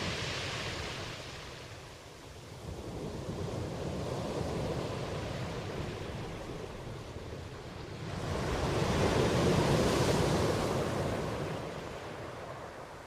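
Black Sea waves breaking and washing on the shore. A smaller swell comes a couple of seconds in, and a big wave surges up about two-thirds of the way through, then washes out and fades.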